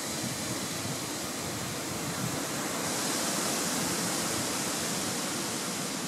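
Steady, even rushing noise with no distinct bird calls, turning a little brighter and hissier about halfway through.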